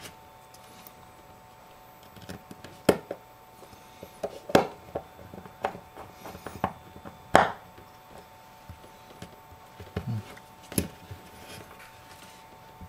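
Irregular small clicks and taps of a phone's screen assembly, small parts and a tool being handled and set down on a tabletop, a few of them sharper than the rest. A faint steady high hum runs underneath.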